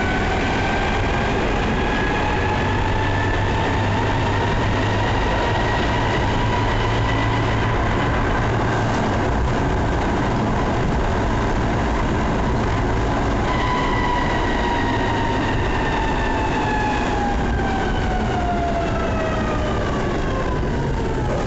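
Tatra tram's electric traction drive whining as it runs: the whine rises over the first few seconds, holds steady, then falls steadily through the second half as the tram slows. A low rumble of the car on the rails runs under it.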